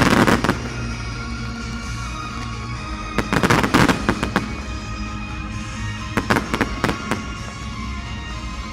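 Fireworks going off in three clusters of bangs and crackling, at the start, about halfway and near the end, over steady background music.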